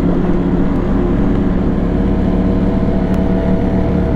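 Motorcycle engine running at steady revs while riding along, its pitch holding flat, over a steady rush of wind and road noise.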